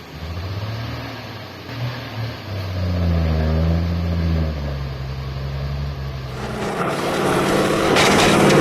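Heavy truck engine labouring under load, its pitch rising and falling. From about six and a half seconds in, a louder rushing noise takes over.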